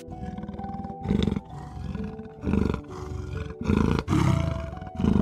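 Leopard calling in short, loud bursts: four calls about a second apart. Soft background music plays underneath.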